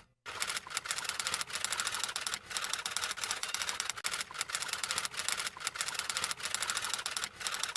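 Typewriter typing sound effect: a fast run of key clicks with a louder strike about once a second, starting a moment in and cutting off suddenly near the end.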